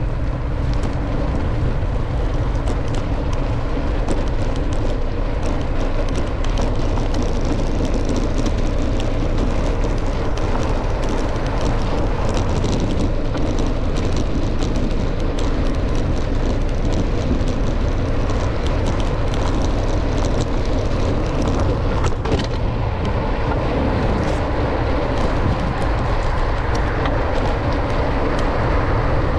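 Steady rush of wind and road noise from riding a bicycle through city traffic, with a low rumble throughout and many faint ticks.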